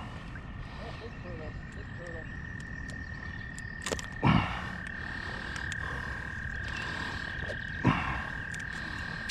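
A frog calling in one long, steady, high trill that begins about two seconds in. Two loud thumps stand out, about four and eight seconds in.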